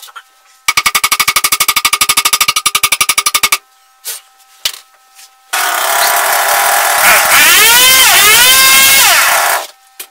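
Welder arcing on a steel climbing spike in a bench vise: a loud, rapid crackle pulsing about ten times a second for about three seconds. About two seconds later comes a second, longer burst of loud hissing noise, with a whine on top that rises and falls twice.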